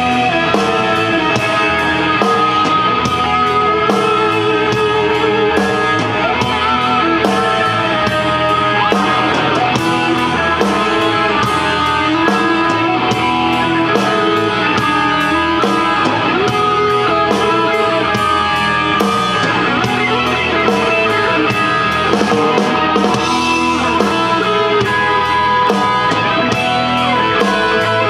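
Live rock band playing: electric guitar over a drum kit keeping a steady beat.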